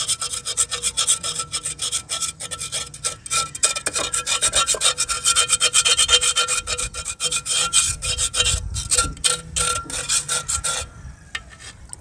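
A small brush scrubbing the inside wall of a terracotta clay pot in rapid back-and-forth strokes, washing off dirt residue. The scrubbing stops about a second before the end.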